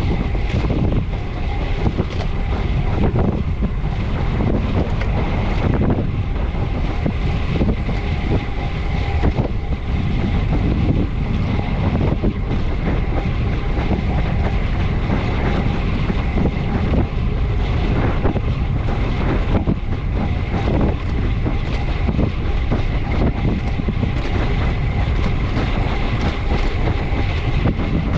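Steady wind rush on the microphone and low road rumble from a bicycle ridden hard at speed.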